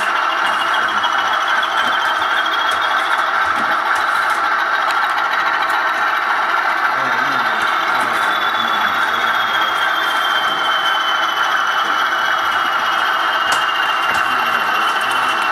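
Model Class 20 diesel locomotive running on a model railway: a steady mechanical whir of motor and gears with a high whine that rises in pitch over the first few seconds, then slowly falls.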